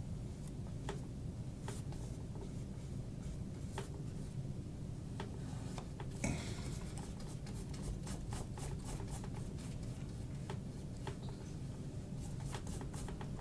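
Paintbrush working oil paint on a stretched canvas: faint scratchy strokes and light clicks scattered through, with one louder brushing scrape about six seconds in, over a steady low hum.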